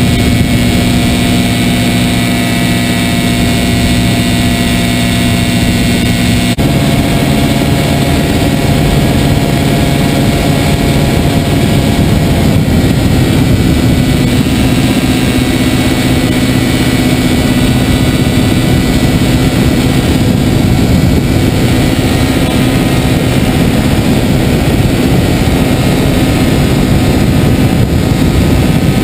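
Small two-stroke engine of a Mosquito NRG powered hang-glider harness buzzing steadily in flight, driving its propeller, over a rushing wind-like hiss. The engine note shifts abruptly about six and a half seconds in and runs rougher after about twelve seconds.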